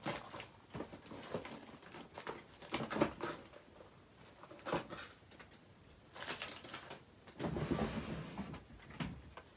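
Rummaging through small craft supplies by hand: scattered clicks, taps and light rattles of small items and packets being moved, with a longer rustle from about seven and a half seconds in.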